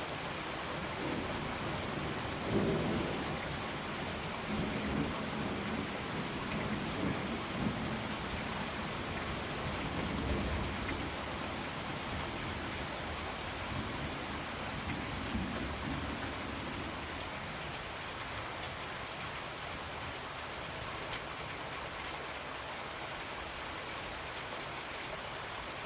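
Steady rain falling, with low rolling rumbles of thunder through the first half that die away, leaving rain alone in the second half.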